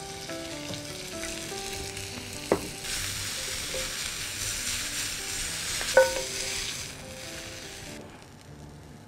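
Thin strips of red chili pepper sizzling as they are lightly stir-fried in a hot pan with wooden spatulas, with two sharp clacks of wood on the pan, the louder one about six seconds in. The sizzle drops away near the end as the peppers are lifted out of the pan.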